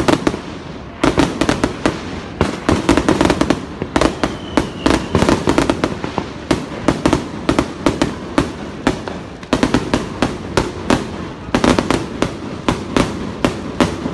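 Aerial fireworks going off overhead: volleys of sharp bangs and crackling pops, several a second, with short lulls between the volleys.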